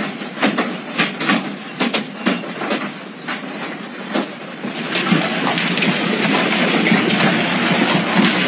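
Hailstones striking hard surfaces: scattered sharp knocks over a background hiss for the first few seconds, then from about five seconds in a dense, steady clatter of heavy hail falling.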